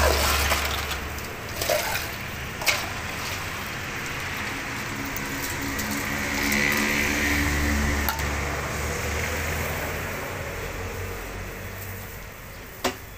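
A plastic scoop digging ice out of a plastic basin and into a plastic cup, with a few sharp clicks and clinks. Under it runs a steady low hum of road traffic that swells around the middle.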